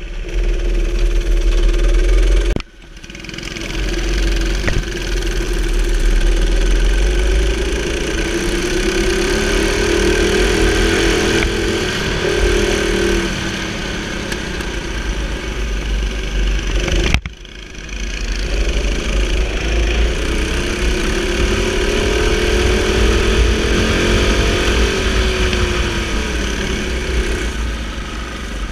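Go-kart engine running under hard throttle, its pitch climbing and falling as it revs up and backs off, over heavy wind rumble on the onboard camera. Twice the whole sound drops sharply and then builds back up.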